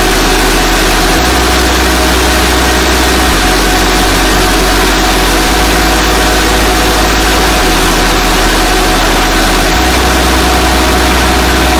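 Mahkota KD-100 rice and corn mill running steadily with grain fed through it, together with its diesel drive engine: a loud, even mechanical noise that doesn't change.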